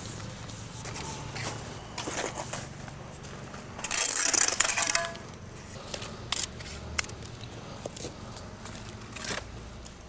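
Mason's steel trowel scraping mortar on brick, with scattered clicks and taps. A louder harsh scrape starts about four seconds in and lasts about a second.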